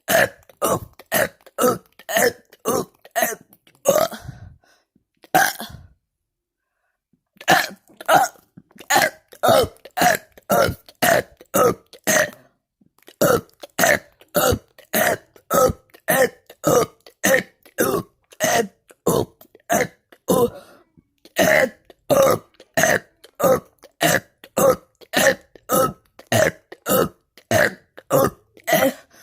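A person burping over and over in short burps, about two a second, with a pause of about two seconds near a quarter of the way in.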